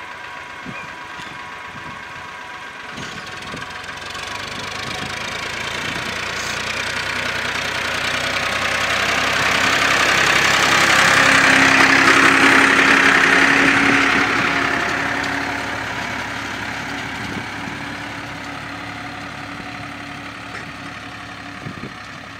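Small tractor's diesel engine running steadily under load as it pulls a ridger through the soil. It grows louder as the tractor passes close by about halfway through, then fades as it moves off.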